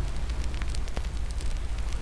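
Wood fire in a fireplace crackling, with a steady low rumble and scattered sharp pops and snaps.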